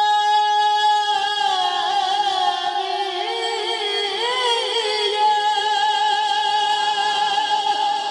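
A man singing a naat unaccompanied into a microphone. A long held note breaks about a second in into a slow, wavering, ornamented melody.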